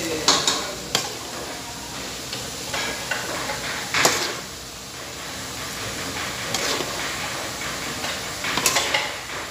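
Pancit canton noodles stir-frying in a large wok: a steady sizzle under the scrape and clank of a spatula tossing them against the pan, with sharper strokes about a second in, at about four seconds and near the end.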